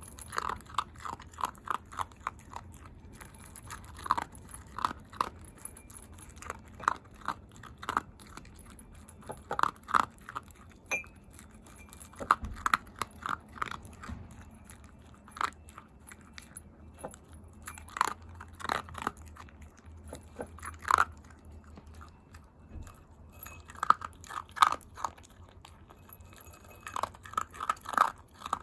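A Shiba Inu crunching dry kibble, with runs of quick sharp crunches, several a second, broken by short pauses.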